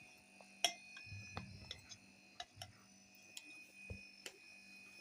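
Scattered light clicks and taps, a dozen or so at irregular intervals, over a faint steady hum and a thin high whine.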